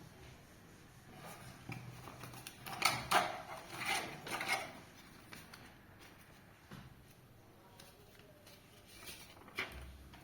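Clicks, taps and rustling of small objects being handled, in a cluster from about two and a half to four and a half seconds in and again near the end.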